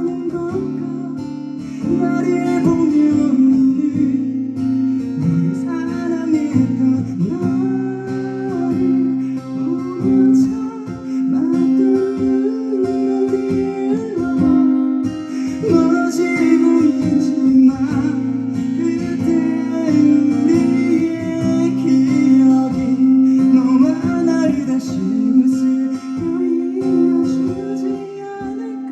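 Live pop-rock band playing an instrumental passage of a ballad, guitar to the fore over a held bass note, with a wordless melodic line above; it dies down near the end.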